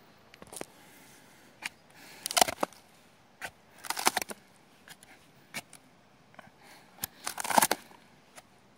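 A knife prying and scraping at the bark of a pine trunk riddled by bark beetles, the loosened bark cracking and tearing away in three short bouts of crackling, with a few single clicks between.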